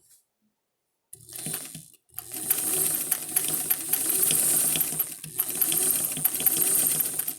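Vintage Kenmore sewing machine stitching in runs: a short burst about a second in, then running fast and steadily with a brief stop near the middle. The machine is really noisy, all clickety clankety.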